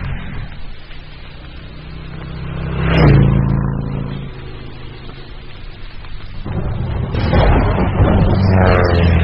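Motor vehicle engine rumbling, swelling as it passes by about three seconds in. The rumble picks up again suddenly later, with a rising engine note near the end.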